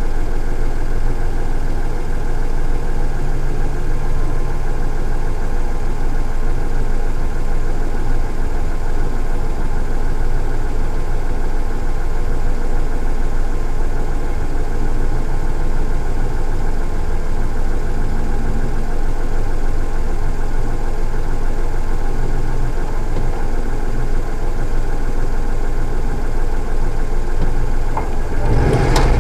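Acura NSX's V6 engine idling steadily. A louder thump comes near the end.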